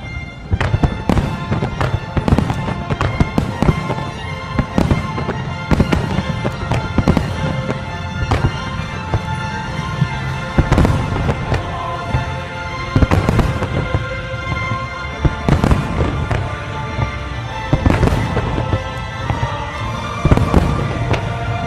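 Finale of a fireworks display: shells bursting in quick, irregular succession, a booming report every second or so and sometimes several together, with crackling in between. Music plays underneath the bursts.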